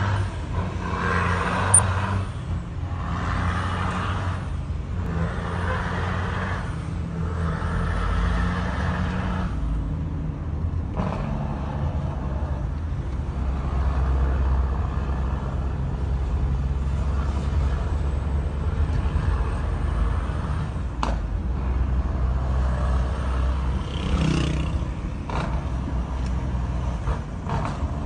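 Heavy truck's diesel engine heard from inside the cab, working up through gear changes on an 18-speed transmission: the engine note breaks and picks up again about every two seconds for the first ten seconds, then runs steadily under way. A few short clicks come near the end.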